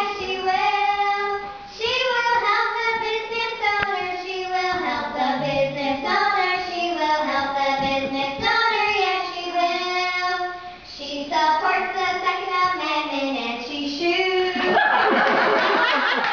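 A single voice singing a melody with long held notes and slides between pitches. About fifteen seconds in, the song gives way to cheering and clapping.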